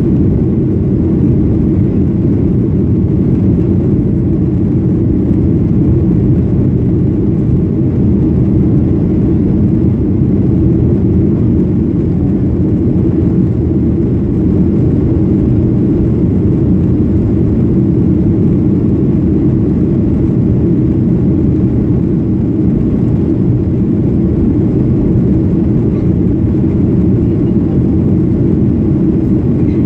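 Steady cabin noise of a Boeing 737-800 climbing after takeoff, heard inside the cabin: the low, even rumble of its two CFM56-7B26 turbofans and the airflow over the fuselage, unchanging throughout.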